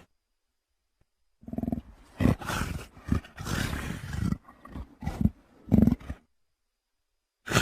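Designed dinosaur creature vocal for a Troodon: a run of about eight short pitched calls, some run together, starting about a second and a half in and stopping about six seconds in.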